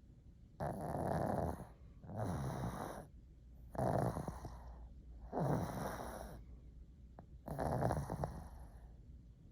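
Pug snoring in its sleep: five rough snores of about a second each, coming regularly every second and a half or so, with quieter breathing between them.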